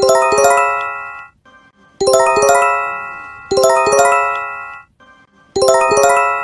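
Electronic alert chime of bell-like notes. Each chime is a quick run of three struck notes that rings on and fades away, and it sounds four times, about every one and a half to two seconds.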